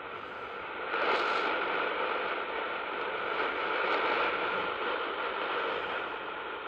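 Static and hiss from a Sangean ATS909x shortwave receiver tuned to an AM broadcast on 11920 kHz, cut off above about 4 kHz by the AM passband. It swells in level about a second in, with no clear programme audio.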